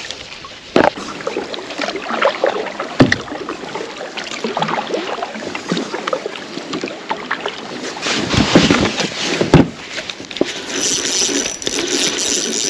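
Kayak paddling: water splashing and dripping off the paddle, with several loud knocks of the paddle against the kayak. Near the end a spinning reel starts a steady whir with rapid clicking as it is reeled in against a hooked fish.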